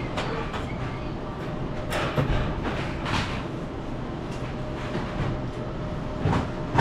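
Steady background hum of a convenience store interior, with a few brief swishing sounds about two, three and six seconds in.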